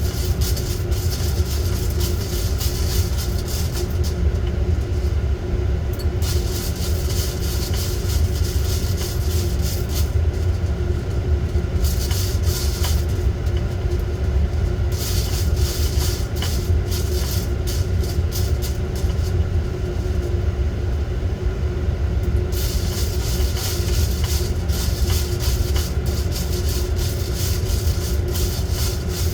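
Coffee roaster running: a steady low rumble of the drum and fan, with stretches of dense, fast crackling ticks that come and go every few seconds.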